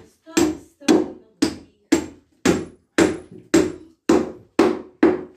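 Hammer blows on the wooden floor beams, about two a second in a steady rhythm, some ten strikes in all.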